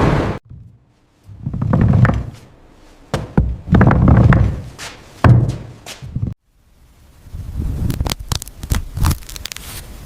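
A series of dull, heavy thunks, several in the first half, followed by a quicker run of sharp knocks and clicks near the end.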